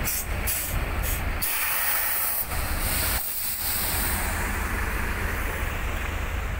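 Heavy trucks running with a steady low rumble, with several short bursts of hissing in the first two seconds or so and a longer hiss around the middle.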